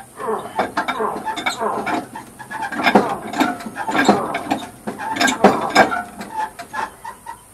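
Irregular metal clanks and clicks of a bar and hand tools worked against a stuck engine while it is forced round by hand, with several sharp knocks in the middle.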